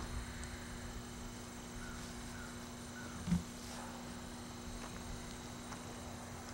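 A steady electrical hum under a faint outdoor background, with a few faint short chirps a couple of seconds in and one brief low thump a little after three seconds.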